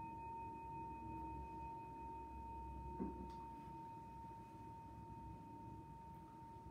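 Faint, steady pure tone held at one pitch without fading, with a fainter higher overtone; a soft knock about three seconds in.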